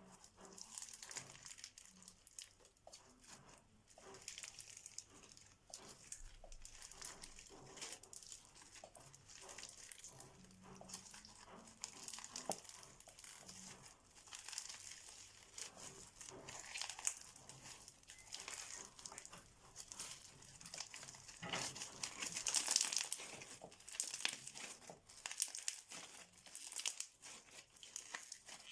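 Crunchy, sticky slime being squeezed and kneaded by hand, giving a dense, irregular crackling with small pops. It is busiest and loudest about three-quarters of the way through.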